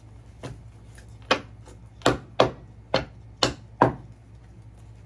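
About seven sharp taps or knocks on a hard tabletop, coming at an uneven pace of one to two a second, with a low room hum beneath.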